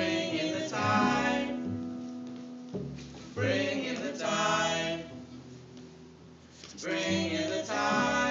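Live band playing a song: three sung vocal phrases over held instrumental chords, with quieter stretches between the phrases.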